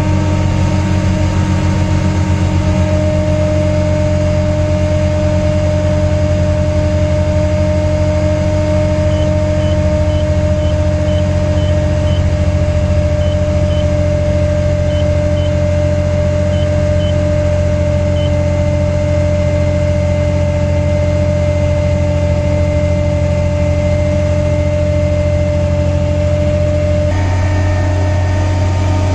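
Broderson carry deck crane's engine running steadily at idle, heard from inside the cab. A run of faint short high beeps sounds for several seconds in the middle.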